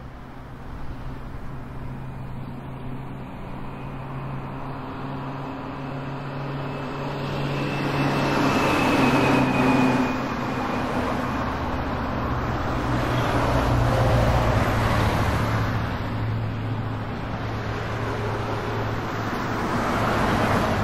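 Road traffic: motor vehicles running past steadily with a low engine hum, swelling louder twice as vehicles go by, about nine and fourteen seconds in.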